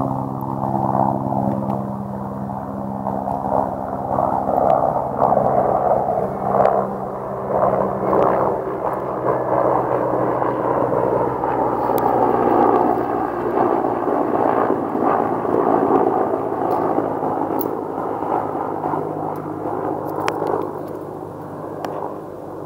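Mi-8 military helicopter flying past, its rotor and engines heard as a steady rushing drone. A low hum under it fades out about halfway through as the helicopter moves off.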